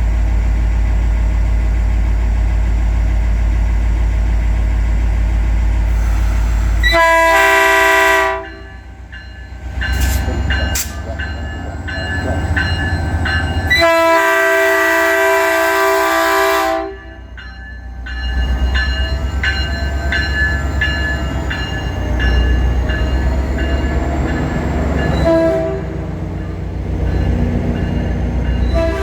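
Caltrain train's multi-tone air horn sounding two long blasts, then a short one, with another starting at the end: the long-long-short-long pattern of a train approaching a grade crossing. Between the blasts the train rumbles past with clicking rail noise. A steady low rumble fills the first several seconds.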